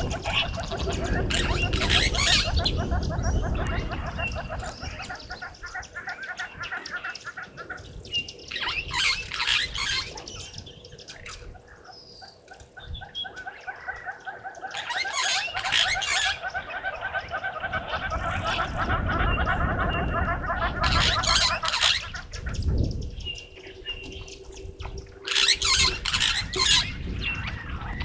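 Birds calling around a waterhole: long runs of rapid repeated trilling notes, short high whistles, and several bursts of shrill chattering.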